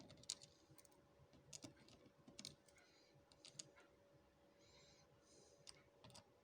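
Faint, scattered small clicks of lock pins and cylinder parts being handled, about one a second.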